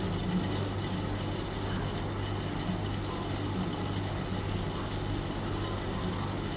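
Turmeric water simmering in a pan on a stove: a steady low hum under a faint, even bubbling.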